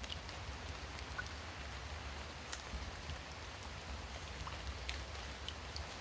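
Water pattering and dripping steadily, with scattered small drips and a low rumble underneath.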